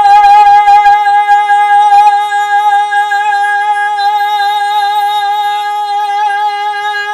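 A solo singing voice holding the long final note of a ballad, with a steady, even vibrato. It eases a little quieter after about two seconds.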